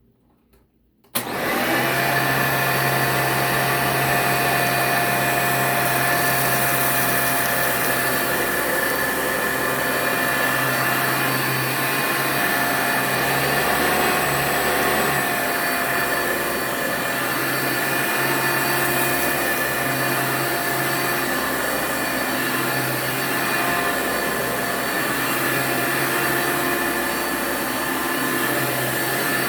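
Hoover U5209-930 Dimension upright vacuum cleaner switched on about a second in, then running steadily with a motor whine while it picks up test debris in a cleanup test.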